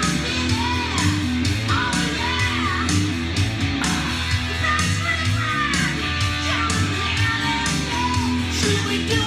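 Rock song with a male-sounding lead singer over electric guitar, bass and drums, played back from a vinyl record on a turntable.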